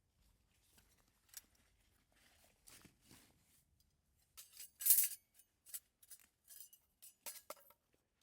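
Scattered, irregular clicks, rattles and light clinks, like small gear being handled, loudest about five seconds in.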